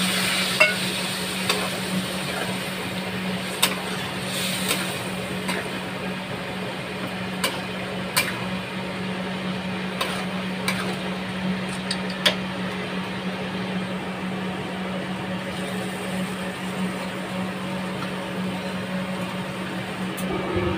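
A steel spatula scraping and clacking against a steel kadhai as soya chunks in masala are stirred, about ten sharp knocks spread over the first dozen seconds. A hiss at the very start fades within the first second, and a steady low hum runs underneath.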